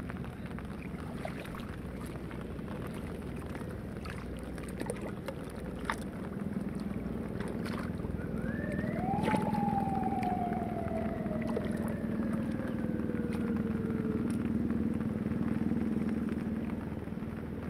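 A motor running steadily, louder from about six seconds in. Near nine seconds a whine rises quickly and then falls slowly over about five seconds. A few sharp knocks stand out, near six and nine seconds.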